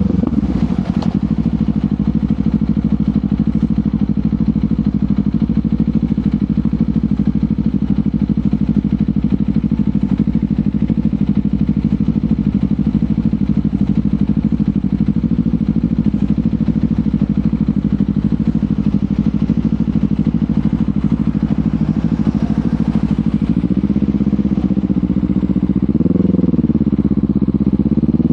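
Kawasaki Ninja 500's parallel-twin engine through a LeoVince GP Corsa Evo slip-on exhaust, running at a steady cruising engine speed for most of the stretch. Near the end its pitch rises and falls twice, then climbs under acceleration.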